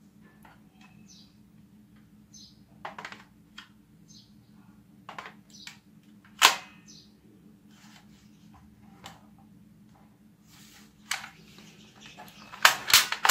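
Plastic clicks and knocks from a toy AK-47 gel-ball blaster being handled as its curved plastic magazine is fitted. The sharpest click comes about six and a half seconds in and a quick run of clicks near the end, over a faint steady low hum.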